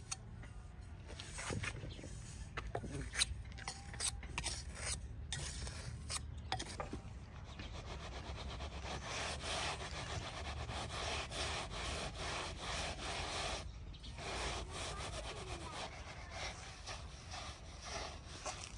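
A trowel scraping over wet cement on a pot mould, with a few taps, then from about eight seconds in a steady gritty rasping as the mould's inner core is turned by its handles against the cement.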